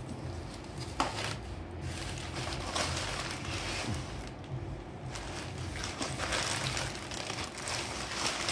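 Newspaper wrapping rustling and crinkling as hands handle and unwrap it, with a sharper crackle about a second in.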